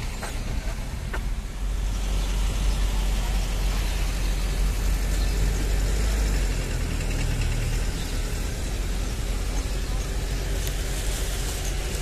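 Car engine running with a steady low hum and road rumble, getting louder about two seconds in as the car moves off.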